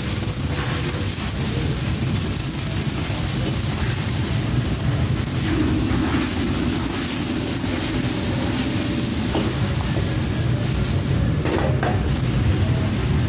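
Lobster frying in a wok on a commercial gas wok range: steady sizzling and bubbling over the rush of the burner, with the metal ladle stirring and scraping in the wok. Near the end the ladle clanks down on the steel range.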